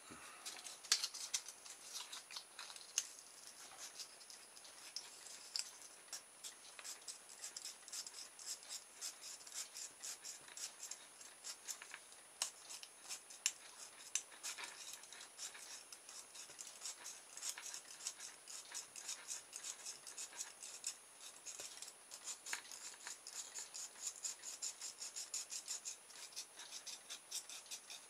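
Abrasive paper rubbed rapidly back and forth on enamelled copper wire at a small motor armature, scraping off the enamel so the wire can make electrical contact. A soft, quick run of high, scratchy strokes, several a second, with brief pauses.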